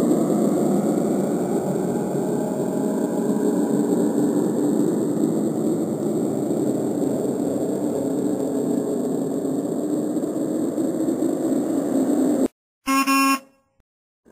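Steady rushing noise from a cartoon soundtrack, cutting off abruptly near the end. About half a second later comes a short horn-like blast, then silence.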